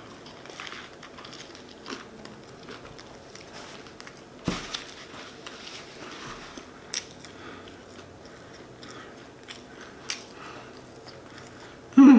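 Close-miked chewing and biting of a shrimp po' boy sandwich: quiet mouth sounds with a few sharp crunchy clicks and smacks scattered through, the sharpest about four and a half seconds in.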